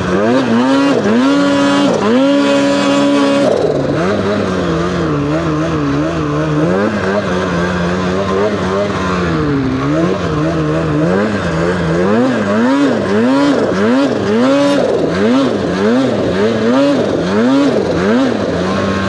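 Turbocharged two-stroke engine of a 2023 Polaris Khaos Boost snowmobile with an SLP Competition exhaust can, revving under throttle. It climbs and holds a high pitch in the first few seconds and drops back near four seconds in. Later it rises and falls in quick, even throttle blips, a little more than one a second.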